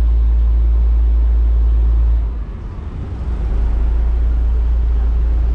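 Single-coach railbus's diesel engine running with a steady low rumble, dipping for about a second from about two seconds in before picking up again.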